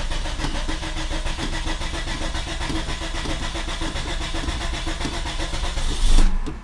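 Nissan car engine running steadily just after being started, with a louder low surge about six seconds in.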